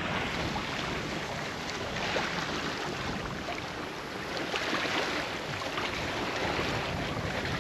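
Wind and water rushing along a sailboat's hull under way, with small splashes of chop against the boat and wind buffeting the microphone.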